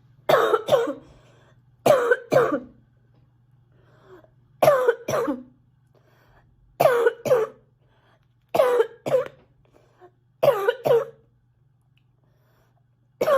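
A sick girl coughing over and over: short bouts of two or three hard coughs, one bout about every two seconds.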